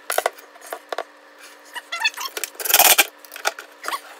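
Metal drawer slide and tools handled against a wooden cabinet: scattered clicks and knocks, a short run of rattling ticks about two seconds in, and a louder brief noisy burst just before the three-second mark, as a screw is set at the back of the slide.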